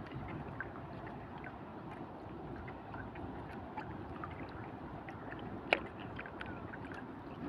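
Water lapping against the hull of a small outrigger fishing boat, a steady low wash with scattered small ticks, and one sharp click about three-quarters of the way through.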